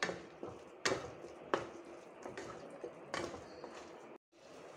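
Wooden spatula stirring thick pumpkin halwa in a non-stick kadai: soft stirring with a few sharp knocks of the spatula against the pan.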